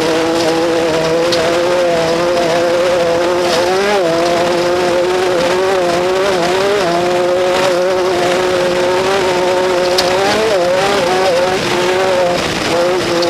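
Off-road race vehicle's engine running hard at steady high revs, its pitch dipping briefly and recovering a few times.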